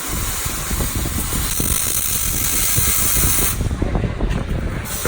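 Electric welding arc hissing and crackling steadily. The hiss breaks off for about a second near the end, then starts again.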